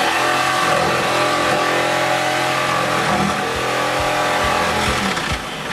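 Jigsaw running steadily while cutting an access hole in the boat, then stopping near the end.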